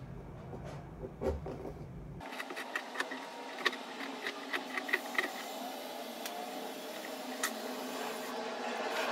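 A knife scoring a pomegranate's skin in a bowl of water, then, played back at five times speed, the fruit being cut and pulled apart by hand underwater: a fast run of small clicks and crackles over a hiss, growing louder near the end.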